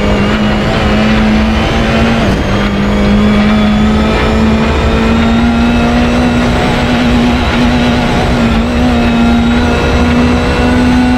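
Mini John Cooper Works Rally T1 rally-raid car heard from inside the cockpit, its engine running hard at high, nearly constant revs over gravel road noise. There is a brief dip in pitch about two seconds in, like a gearshift, and then the pitch climbs slowly.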